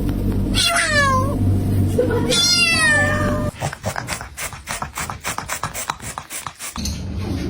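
A domestic cat meowing twice, each call sliding down in pitch, over a low steady hum. After that comes a quick run of sharp clicks, about four or five a second, for roughly three seconds.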